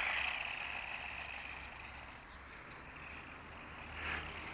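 Small electric drive motors of a Feng Niu FN668 RC flying car whining as it drives along asphalt in car mode at its low speed rate, fading over the first couple of seconds as it moves away.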